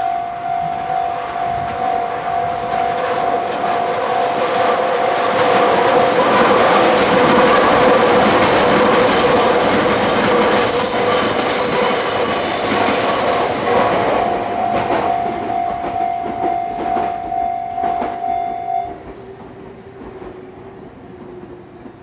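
Japanese level crossing alarm ringing its repeating electronic clang while a Meitetsu Toyokawa Line electric train passes over the crossing. The train is loudest in the middle, with a high wheel squeal. The alarm cuts off suddenly about 19 seconds in.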